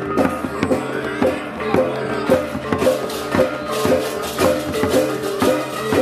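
Balinese gamelan music of the kind that accompanies an ogoh-ogoh parade: fast, dense percussion strikes over steady ringing metallic tones.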